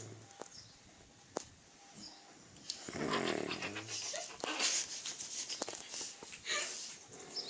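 A sleeping woman snoring, loudest in one long snore about three seconds in, followed by breathy noises.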